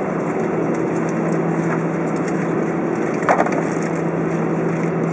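Steady cabin noise inside an Airbus A320 taxiing slowly to the gate: the idling engines and cabin air running with a low steady hum. One sharp knock about three seconds in.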